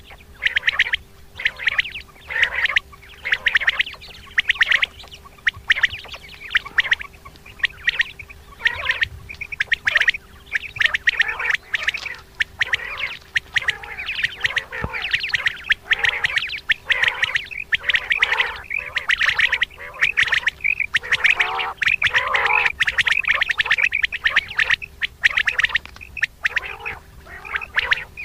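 Common quail calling over and over in a dense run of short, sharp notes, with a faint steady hum underneath.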